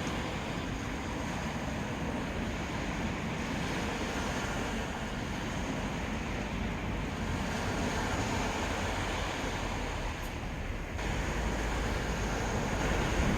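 Sea surf washing on a beach, with wind. About eleven seconds in, the sound shifts to a heavier low rumble, like wind buffeting the microphone.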